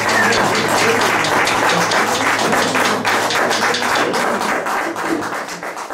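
Audience applauding after a song, with a short high whistle right at the start; the clapping thins out and fades toward the end.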